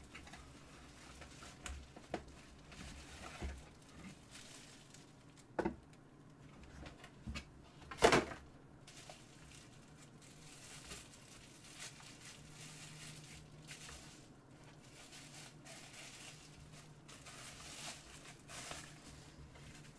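Handling and unpacking sounds from a computer power supply's box: scattered knocks and clicks with light rustling of cardboard and foam packing. The sharpest knock comes about eight seconds in. A faint steady hum comes in around the middle.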